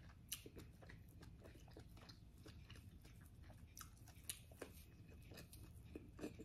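A person chewing food, faint, with scattered small wet clicks from the mouth.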